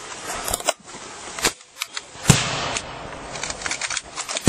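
Airsoft guns firing single shots: sharp, irregular clicking cracks, the loudest about halfway through, with a quicker run of shots near the end.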